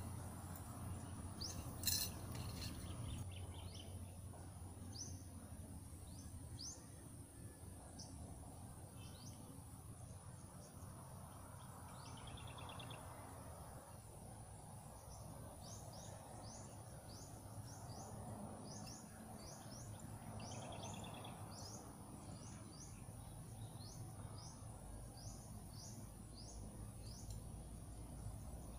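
Countryside ambience: a steady high-pitched insect drone, with many short bird chirps repeating throughout and a couple of brief buzzy calls. A single sharp click about two seconds in.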